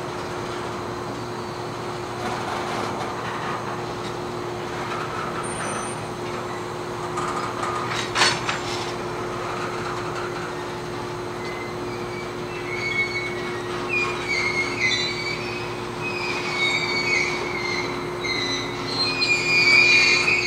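Freight train cars rolling slowly with a steady low hum underneath and a single clank about eight seconds in. From about halfway through, steel wheels squeal against the rail in wavering high tones that grow louder near the end.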